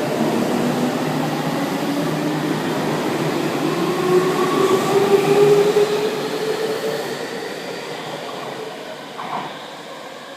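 Electric commuter train moving through the station. Its motor whine slowly rises in pitch, is loudest about halfway through, then fades as the train pulls away. A brief clack sounds near the end.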